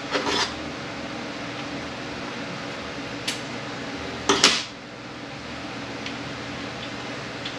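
Metal parts of a Honda BOYA automatic transmission clinking and clattering against each other and the bench during teardown: a short clatter right at the start, a light tick about three seconds in, and a louder clatter about four and a half seconds in, over a steady shop hum.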